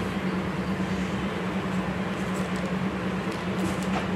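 A steady low machine hum runs throughout, with a few faint crinkles of plastic packaging being handled between about two and four seconds in.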